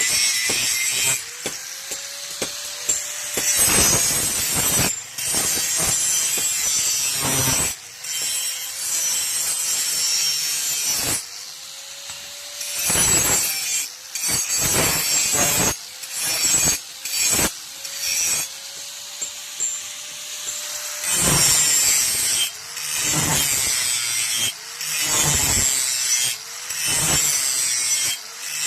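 Steel knife blade being sharpened by hand: a run of irregular rasping, scraping strokes of metal on an abrasive, with short pauses between them.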